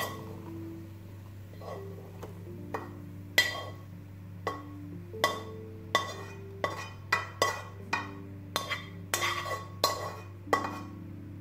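A spatula knocking and clinking against a frying pan and dish as fried food is scooped out, in about fifteen irregular sharp taps that each ring briefly and come more often in the second half.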